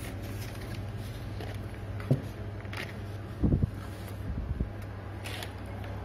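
Paper instruction sheets being lifted and flipped, with light rustles, a small knock about two seconds in and a louder thump about halfway through, over a steady low hum.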